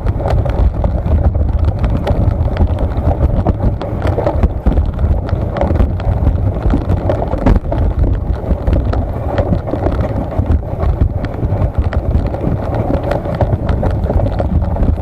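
Wind buffeting the microphone: a loud, steady low rumble with many small clicks and knocks throughout.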